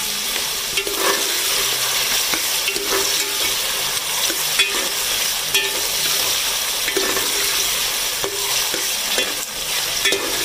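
Sliced onions and cumin seeds sizzling in hot oil in a metal pot, being lightly sautéed, while a steel spoon stirs them and scrapes against the pot repeatedly.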